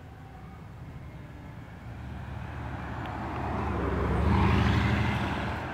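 Bugatti Veyron's 8.0-litre quad-turbo W16 engine running as the car drives slowly past close by. It grows steadily louder, is loudest a little after four seconds in, and then fades.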